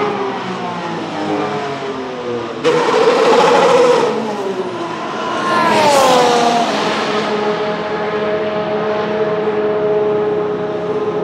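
Red Bull RB14 Formula 1 car's 1.6-litre turbocharged V6 engine revving, its pitch rising and falling. It gets suddenly louder a couple of seconds in, drops in revs about halfway, then holds a steady pitch.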